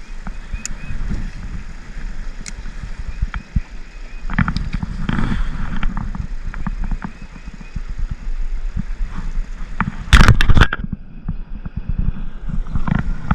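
Strong wind buffeting the microphone, a steady low rumble that swells in gusts about four to five seconds in, with a very loud blast or knock around ten seconds in.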